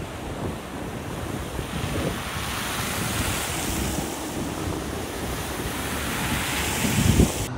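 Floodwater rushing and splashing as a Honda CR-V wades through a flooded road, the wash swelling as the car comes close. Wind buffets the microphone throughout, with a strong low gust near the end.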